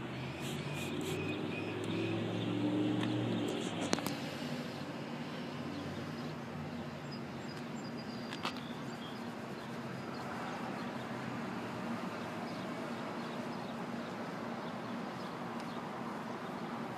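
Steady outdoor background noise, with a vehicle engine running for the first four seconds or so, and two sharp clicks, about four and eight seconds in.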